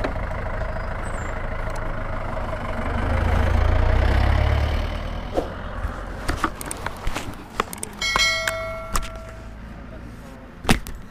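Roadside traffic: a motor vehicle rumbles past, loudest about three to five seconds in, then fades. A short horn beep sounds about eight seconds in, among scattered clicks and knocks.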